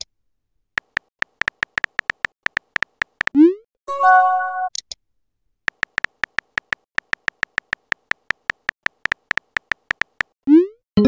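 Chat app sound effects: a rapid run of keyboard tap clicks as a message is typed. About three seconds in, the clicks give way to a quick rising swoop and a short pitched chime as a message is sent and a new one arrives. The typing clicks then start again, and another swoop comes near the end.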